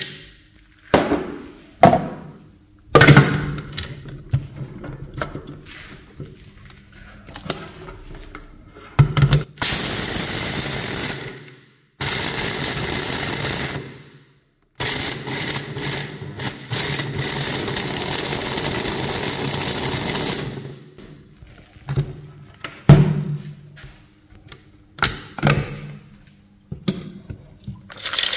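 Electric chopper grinding hard Mentos candies. The motor runs in three bursts of about two, two and six seconds. Before and after are clattering knocks as the candies are tipped into the plastic bowl and the lid and motor unit are fitted and later removed.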